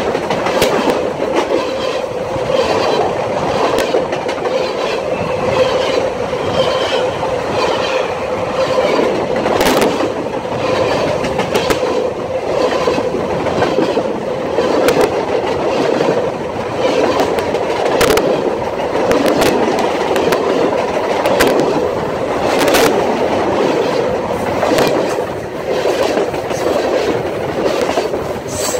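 Freight train cars rolling past close by: a steady rumble of steel wheels on the rails, with clicks and clacks at the rail joints and a few sharper clanks.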